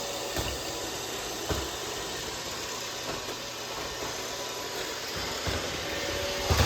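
Roomba robot vacuum running: a steady whir from its motor and brushes, with a few soft low thumps.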